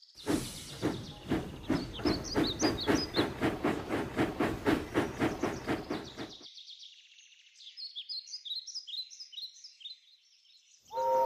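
Steam locomotive sound effect chuffing at about four puffs a second, fading out about six seconds in, with birds chirping throughout and alone after the chuffing stops.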